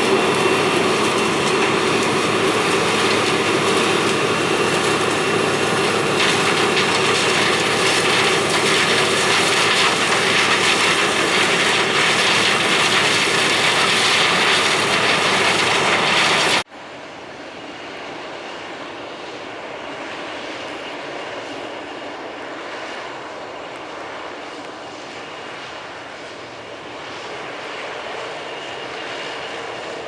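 CAT Lexion combine harvesting corn, its engine and threshing machinery running with a loud, steady roar close up. About two-thirds of the way through, the roar cuts off suddenly to a quieter, more distant steady running of a Lexion combine working the corn.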